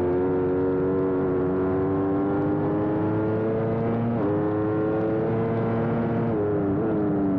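Aprilia sport bike's engine at full throttle, heard from on board over wind rush. Its pitch climbs steadily, drops sharply about four seconds in with the upshift from third to fourth gear, climbs again, and then falls away near the end as the throttle closes.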